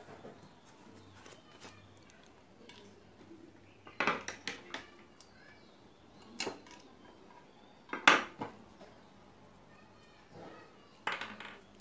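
Sharp clinks and knocks from hands working on a CRT TV's picture tube around its high-voltage anode cap, four main ones a couple of seconds apart, the loudest about eight seconds in.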